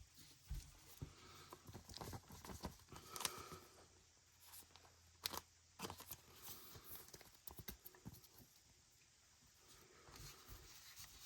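Faint plastic rustling and a few soft clicks and taps as a trading card is slid into a protective plastic sleeve, with the sharpest taps about three and five seconds in.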